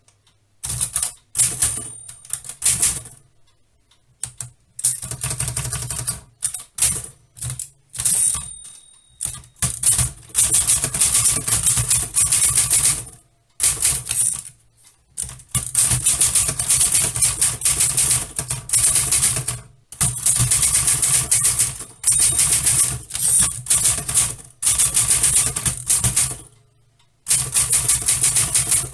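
A typewriter being typed on: fast runs of sharp key strikes, broken every few seconds by short pauses.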